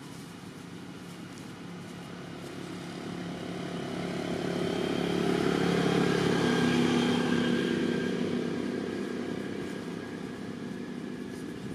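An engine passing by: a droning hum that swells over about four seconds, is loudest about halfway through, then fades away.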